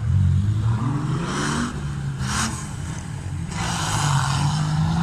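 Off-road vehicle engine running, revving up briefly about a second in, with several short bursts of rushing noise over it.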